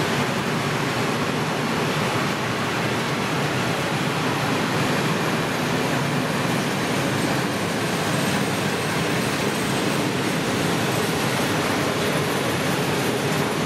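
Freight train of open coal wagons rolling past at a steady speed: a continuous, even noise of steel wheels running on the rails.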